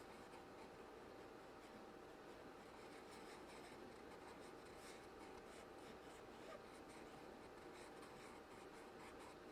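Near silence: faint room tone with a few light scratching sounds.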